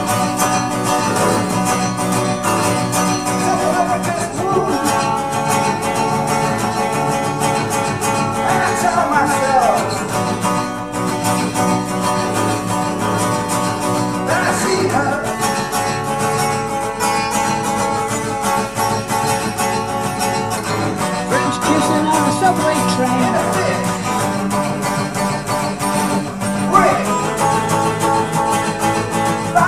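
Acoustic guitar played steadily through a run of chords, an instrumental stretch of a song.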